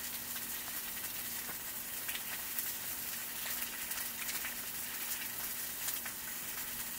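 Food sizzling and frying over heat: a steady hiss with small scattered crackles and pops, over a faint steady low hum.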